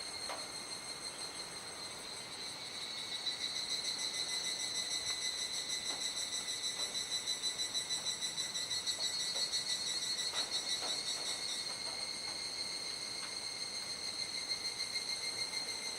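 Chorus of cicadas singing at dusk: a steady, high, ringing drone, with a fast pulsing song joining about three seconds in and stopping near twelve seconds.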